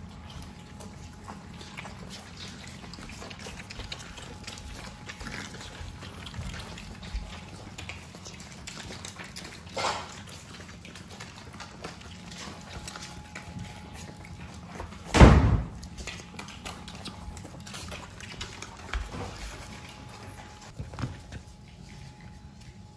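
French bulldog puppies nursing from their mother, with wet snuffling, suckling and small grunts. A short louder sound comes about ten seconds in and the loudest about fifteen seconds in.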